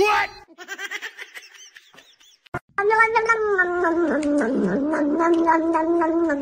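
A cat's long, drawn-out moan held at one steady pitch for about four seconds, starting about three seconds in. Just before it comes a short rising squeak and some faint chirps.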